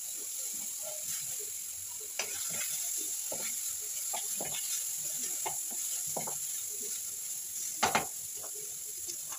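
Onions and tomatoes sizzling in hot oil in a kadai while a spatula stirs and scrapes against the pan in short irregular strokes, with a couple of louder knocks of the spatula on the pan near the end.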